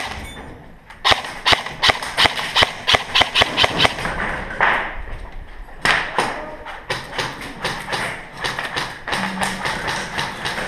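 Airsoft gunfire: a rapid series of sharp cracks, several a second, from shots and BBs striking hard surfaces, starting about a second in and keeping up through the rest.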